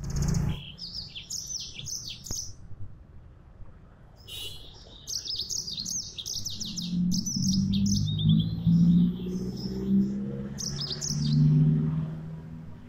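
Yellow-fronted canary (Mozambique canary) singing a fast, chirpy warbling song in quick bursts with short pauses, about half a minute's worth of the busy 'gacor' song compressed into repeated phrases. A louder low-pitched sound runs underneath through the second half.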